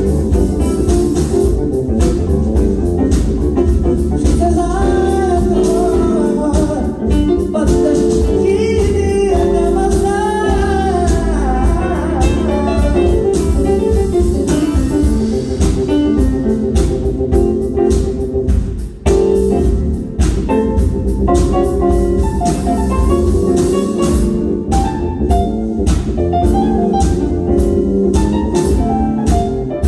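A band playing a bluesy, jazzy groove with guitar over a steady beat of drum hits, and a melody line that bends up and down for several seconds near the middle.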